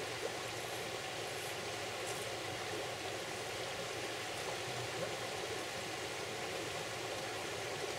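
Steady hiss of a river running over stones.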